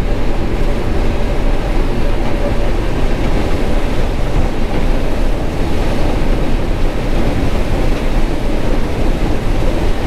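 John Deere 9400 combine harvesting corn, heard from inside the cab: a steady, loud rumble of the diesel engine and threshing machinery under load. The rumble is heavy, which the operator reads as a sign of a good corn crop going through the machine.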